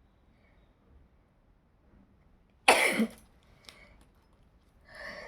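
A person sneezes once, a sudden loud explosive burst about halfway through. Near the end a softer voiced 'ah' intake begins, building toward another sneeze.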